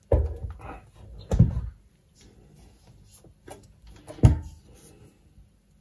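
Metal case of a Kenwood TS-2000 transceiver being tipped and set down on a wooden worktop: a few dull thumps and knocks with light rattles between, the sharpest knock about four seconds in.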